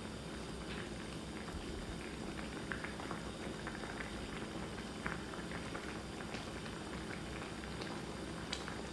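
A pot of gochujang sujebi (Korean hand-torn dough soup in red pepper paste broth) bubbling quietly at a simmer, with a steady hiss and many small bubble pops.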